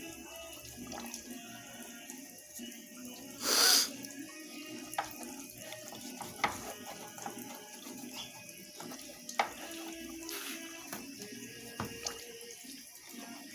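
Water running into the tub of a Consul CWS 12 top-loading washing machine as it fills for a wash cycle. A brief loud rush about three and a half seconds in, and a few sharp clicks later.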